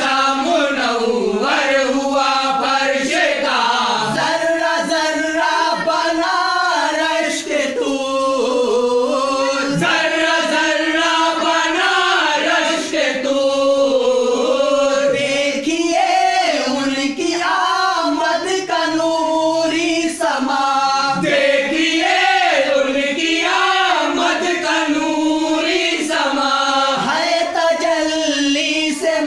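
A group of voices singing a naat, an Urdu devotional song, in a slow, chant-like melody that runs on without a break.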